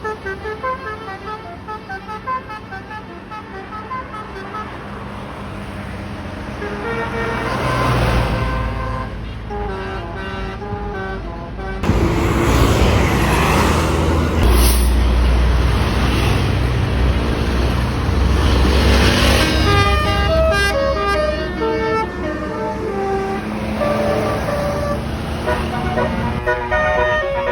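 A tour bus's basuri telolet air horn set playing a quick tune in short stepped notes, with a heavy bus engine rumbling past in the middle. The horn tune comes back near the end.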